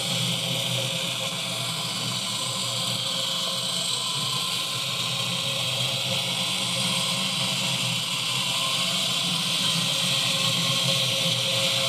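Steady whirring of the small electric motors of Car System model vehicles, a Unimog and an Econic truck, driving around the layout. It gets slightly louder in the last few seconds.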